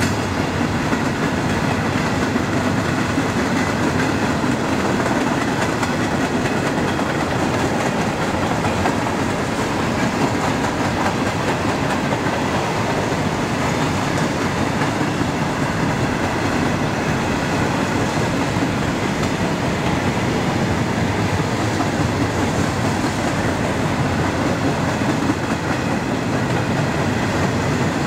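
Covered hopper cars of a long freight grain train rolling past at speed: a steady, loud run of steel wheels on the rails.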